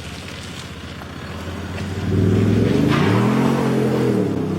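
Synthetic AMG GT engine sound from a JSR Soribak active sound module, played through a speaker rather than coming from the exhaust. A steady low engine note swells sharply about two seconds in, its pitch climbing and then levelling off as in a rev under acceleration.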